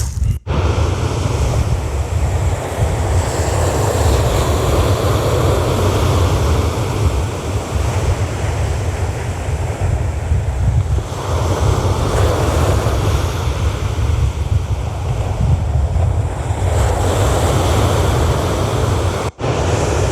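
Sea surf breaking and washing up a beach in swells, with strong wind rumbling on the microphone. The sound drops out for an instant twice, just after the start and near the end.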